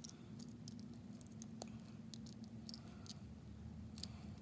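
Faint clicks and crinkles of a thin metal snuff can lid being pinched and bent over with needle-nose pliers, with a few sharper clicks near the end.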